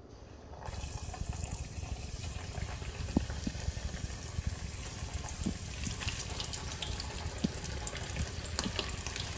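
Flour-coated squid pieces frying in a saucepan of hot vegetable oil: a steady sizzle with scattered crackles and pops. It starts about a second in as the first pieces go in.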